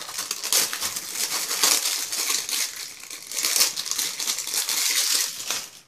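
Clear plastic wrapping crinkling and crackling as it is peeled off and crumpled by hand, stopping abruptly near the end.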